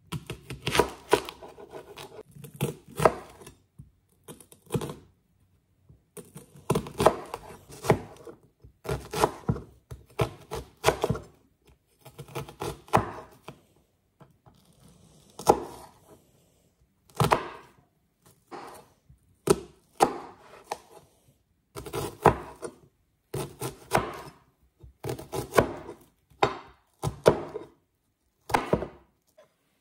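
Chef's knife chopping a peeled onion on a cutting board: bursts of several quick knife strokes that hit the board, with short pauses between bursts.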